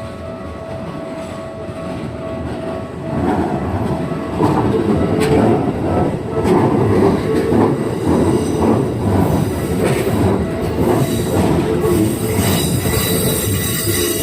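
Keikyu train passing over a level crossing: after a steady tone at the start, the rumble grows about three seconds in, and the wheels clack over the rail joints in a beat of roughly two a second. High wheel squeal comes in near the end.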